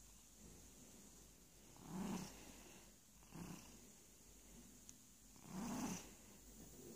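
Domestic cat purring faintly while being stroked, the purr swelling louder three times: about two seconds in, briefly a little later, and most strongly near the end.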